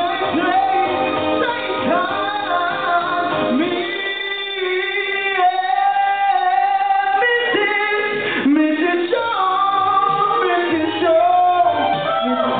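A man singing karaoke into a microphone over a recorded backing track through the bar's sound system, holding a few long notes.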